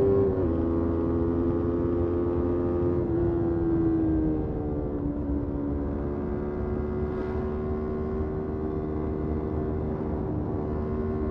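Motorcycle engine running at steady revs. Its pitch steps down just after the start and slides lower about four seconds in, then holds steady.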